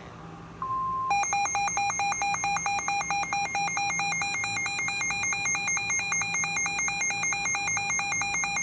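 Emergency Alert System broadcast tones: a short single beep about half a second in, then the loud, steady two-tone EAS attention signal from about a second in, which announces that an emergency warning message follows.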